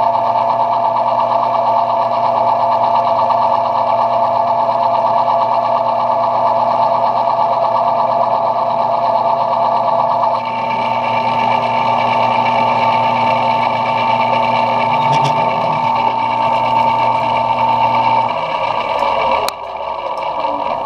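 Metal lathe running, turning down brass stock, with a steady machine whine. Near the end the motor is switched off and winds down, with a sharp click.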